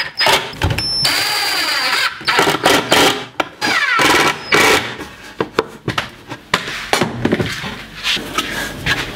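Ryobi cordless driver running, driving a screw through a metal drawer slide, stopping about two seconds in. Then a run of irregular clicks, knocks and metal rattles as the MDF drawer is pushed in and out on its telescopic slides.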